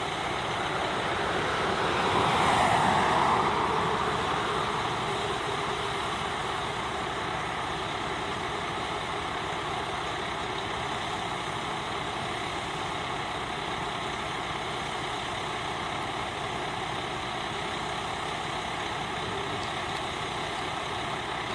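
Fire truck engines running. One truck passes close, swelling loudest about two to four seconds in, and is followed by a steady engine drone.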